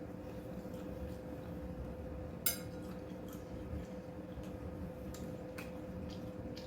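One sharp, ringing clink of tableware about two and a half seconds in, with a few faint small clicks of eating utensils, over a steady low hum.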